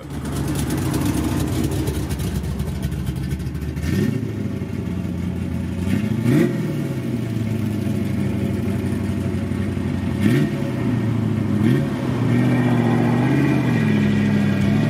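Hot-rodded 1972 Dodge Coronet wagon engine pulling away under throttle. Its pitch climbs and drops back sharply a few times as the revs rise and fall.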